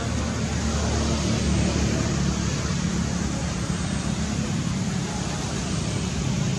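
Steady outdoor background rumble and hiss, with no distinct event standing out.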